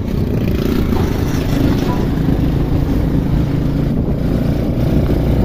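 Vehicle engine running steadily with road rumble and wind rushing over the microphone, heard while riding along a road in a trishaw.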